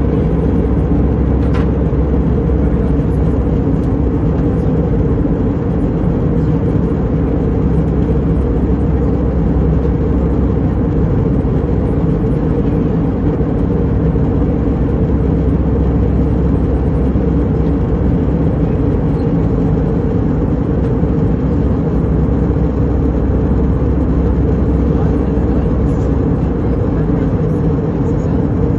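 Airliner cabin noise in flight: a steady, unbroken drone of engines and airflow heard from inside the cabin.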